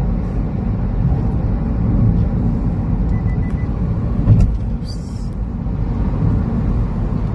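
Road and engine noise heard inside a car cabin at expressway speed: a steady low rumble, with a single thump about four seconds in.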